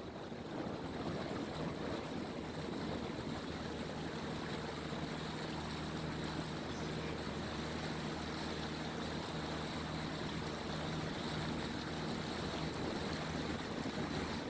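Boat motor running steadily with a low hum, under a steady wash of wind and water noise.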